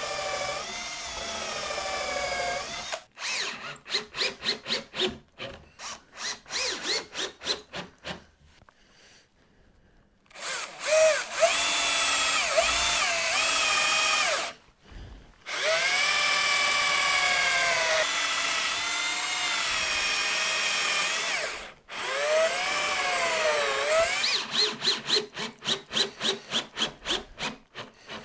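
Cordless drill/driver driving screws into wood: the motor whines in long runs, its pitch sagging and recovering under load. Between the runs come quick short pulses, about four a second.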